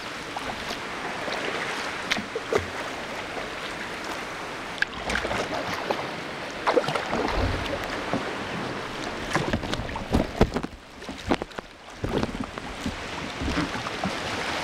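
Ocean water sloshing and washing around a kayak in the surf, with irregular short splashes and knocks; the wash dips briefly about eleven seconds in.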